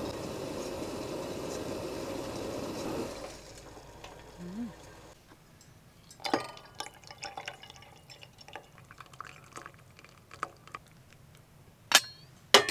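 Iwatani Tough-Maru Jr. cassette gas stove burner hissing under a pot of water at the boil, cutting off about three seconds in. Then hot water is poured from the pot into a stainless steel tumbler, with drips, small ticks and a couple of sharp clinks near the end.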